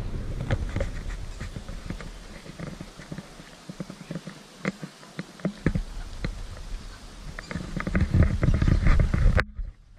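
Handling noise from a pole-mounted action camera being carried along a garden path: irregular knocks, taps and scrapes over a low rumble, busiest near the end.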